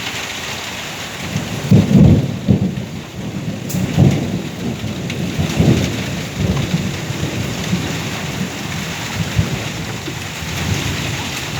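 Thunder rumbling in rolling swells over steady heavy rain. The loudest peal comes about two seconds in, and weaker rumbles follow.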